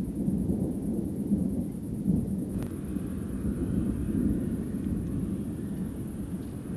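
Rolling thunder from a thunderstorm, a continuous low rumble that swells and fades in waves.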